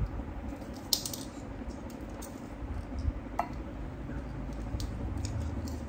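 Clicks and light rattling of small metal parts being handled, with a sharp click about a second in and a fainter one past three seconds, over a low steady hum.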